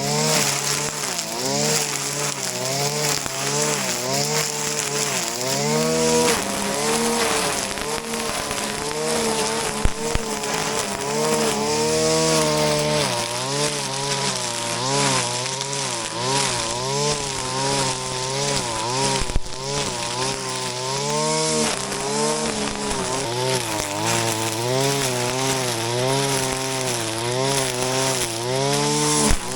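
Shindaiwa RK3026-PT brush cutter's 25.4 cc two-stroke engine running under load while cutting grass, its pitch rising and falling every second or two. Two sharp ticks, about a third and two-thirds of the way through.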